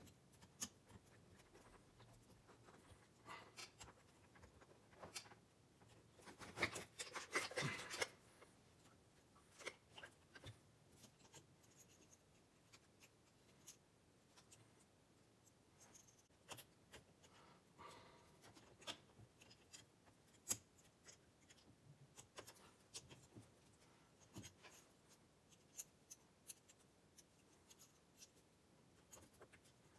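Faint, scattered clicks, taps and rubbing of hands working small parts onto a car pedal assembly, with a louder stretch of handling noise about six to eight seconds in.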